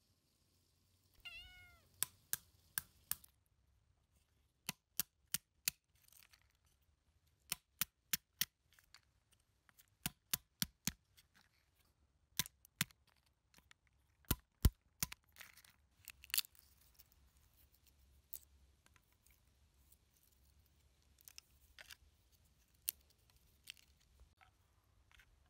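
A cat meows once, about a second in. Then walnuts are cracked by striking them with a wooden pestle on a wooden board: sharp knocks in quick groups of three to five, repeated every few seconds, turning to fainter crackles of shell near the end as the nuts are picked apart by hand.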